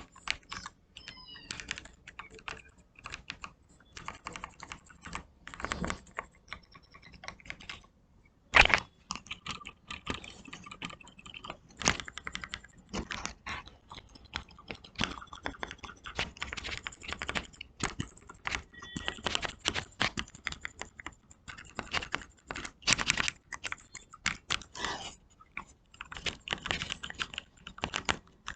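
Typing on a modded Portronics Hydra 10 mechanical keyboard: a fast, irregular run of key clacks, with one much louder strike about nine seconds in.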